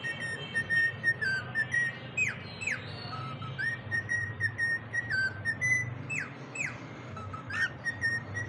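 Cockatiels whistling: held whistle notes that step up and down between a few pitches, broken by quick downward-swooping whistles, over a steady stream of rapid high chirps.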